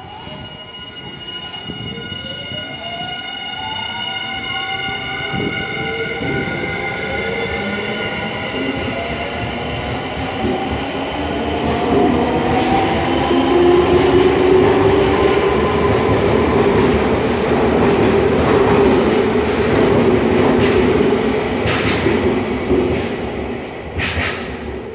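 Semboku electric train pulling out of the station: the traction motors whine, rising in pitch as it accelerates, then wheel and rail noise grows as the cars pass close by and is loudest midway. A few sharp wheel clacks come near the end as the last cars go by.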